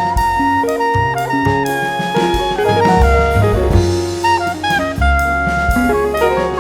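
Background jazz music: a saxophone playing a melody over bass and drum kit.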